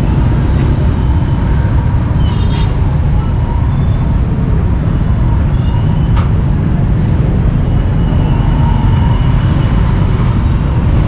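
Steady low rumble of street traffic, with a few faint knocks of a cleaver and tongs on a wooden chopping block.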